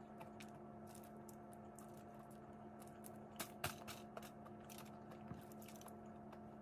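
Boiled crawfish shells being cracked and peeled by hand: scattered small clicks and crackles, the sharpest a few cracks a little past the middle, over a steady low hum.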